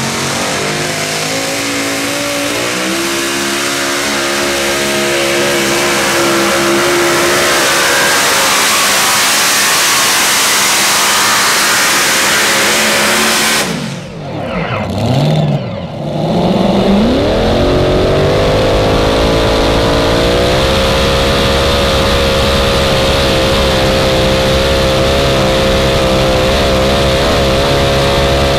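Competition pulling tractor's engine running hard during a pull, its pitch climbing and then holding steady. About halfway through the sound drops away for a couple of seconds with a falling-then-rising whine, then the engine climbs again and holds a higher steady pitch.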